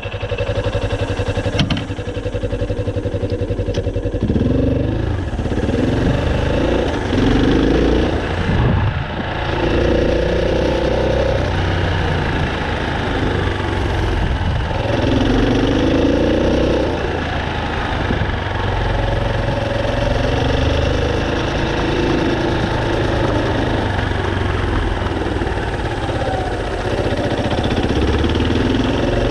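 Off-road motorcycle engine running: it idles steadily at first, then from about four seconds in revs up and down repeatedly as the bike rides off, and settles to a steadier pitch in the second half.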